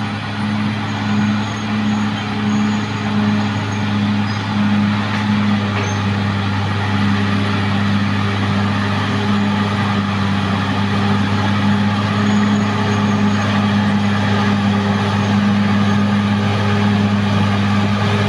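Caterpillar D6R XL bulldozer's diesel engine running steadily at work: a low, even drone with dense machine noise over it, pulsing slightly in the first few seconds.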